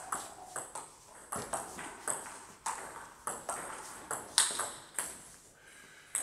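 Table tennis rally: the ball clicking sharply off the rubber-covered bats and bouncing on the table, about two hits a second, each ringing briefly in the hall.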